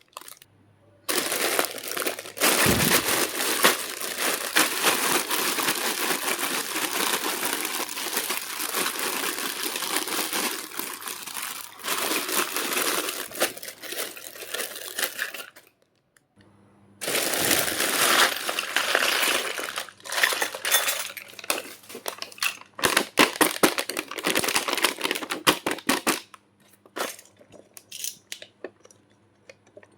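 Plastic packaging crinkling and rustling as a toy kitchen set is unboxed, in two long stretches with a short pause between. Near the end it gives way to scattered light clicks and taps.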